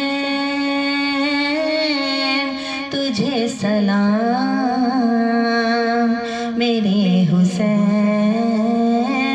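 A woman's solo voice singing an Urdu salam (devotional naat-style chant) in long, held notes that waver and bend in pitch, with short breaks between phrases.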